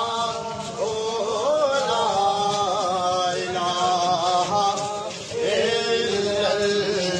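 A man's voice chanting in a long melodic line of held, wavering notes, with a short break about five seconds in.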